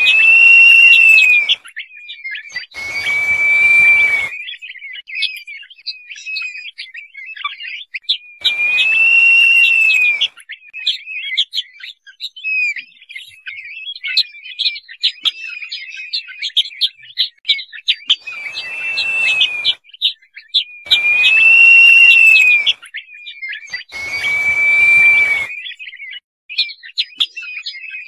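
Crested partridge (roul-roul) calling: six long drawn-out whistles, each rising and falling in pitch over a second or two, with short high chirps running continuously in between.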